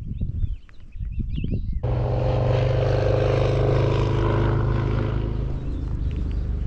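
A motor vehicle's engine running steadily close by, cutting in abruptly about two seconds in and easing off near the end. Before it, footsteps and a few bird chirps.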